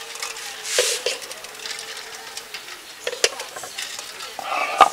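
Boiled eggs being peeled by hand in a steel bowl of water. There is a short swish of water about a second in, then a few sharp clicks of shell and egg against the steel, the loudest just before the end.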